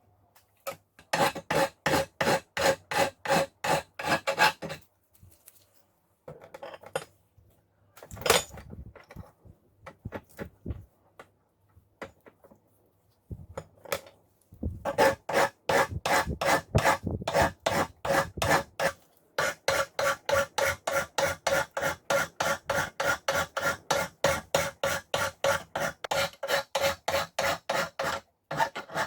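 Hand file rasping on a steel cold chisel in even back-and-forth strokes, about three to four a second, with a faint metallic ring. It comes in three runs, with a few scattered knocks and scrapes in the pause between the first and second.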